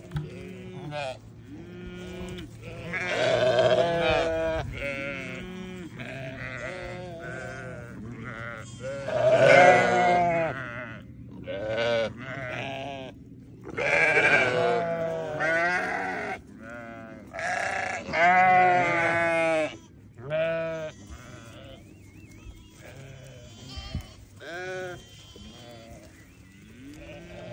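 Sheep bleating over and over, several animals calling in turn with long, quavering calls that are loudest in the first two-thirds.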